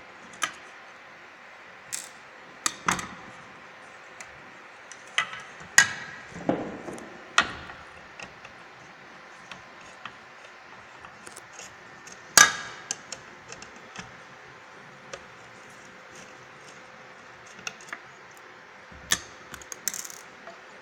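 Irregular clicks, taps and metallic clanks of hand tools and metal parts being handled while a light fixture's ballast is being changed. The loudest knock comes about twelve seconds in.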